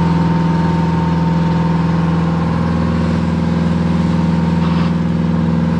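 The boat's Detroit Diesel engine running steadily underway at cruising speed, a constant low drone.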